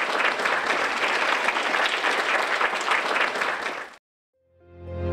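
Audience applauding, a dense patter of many hands clapping, which cuts off abruptly about four seconds in. After a short silence, music with long held notes fades in.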